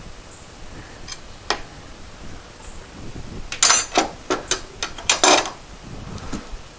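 Sharp metal clinks and rattles of a socket extension and wrench being pulled out from among engine parts and handled. There are a couple of light ticks early on, then a quick burst of loud clinks between about three and a half and five and a half seconds in.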